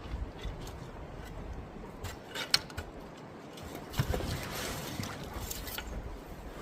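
Scuffs and knocks of a person clambering into an inflatable packraft, with a sharp knock about two and a half seconds in and another at four seconds, over low wind rumble on the microphone.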